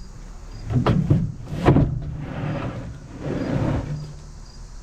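A few sharp knocks, followed by two longer sliding, scraping sounds.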